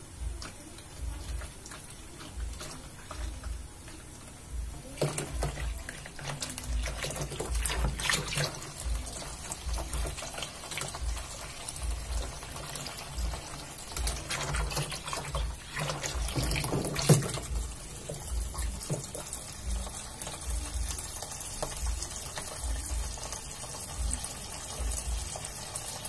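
Water running from a garden hose into a washing machine's tub, filling it. The rush grows about five seconds in and dies down after about eighteen seconds.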